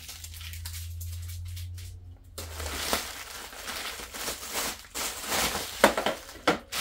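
Plastic bubble-wrap packaging crinkling and crackling as an RC transmitter is unwrapped by hand. The first couple of seconds are fairly quiet with a low hum, and sharper crackles come near the end.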